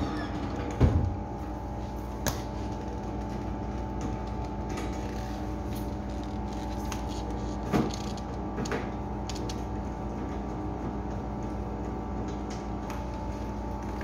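Steady hum with several fixed tones from the machinery of a Sanyo refrigerated display case running. A few knocks and clicks come from its lower cover panel being handled and screwed back on: a low thump about a second in, and another knock near eight seconds.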